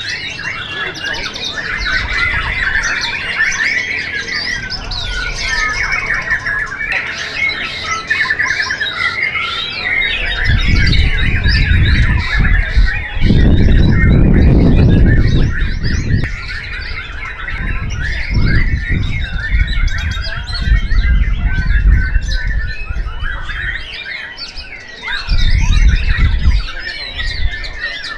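Caged white-rumped shamas singing, a dense tangle of fast whistled phrases and chattering. Loud bursts of low rumble come in about ten seconds in and again near the end.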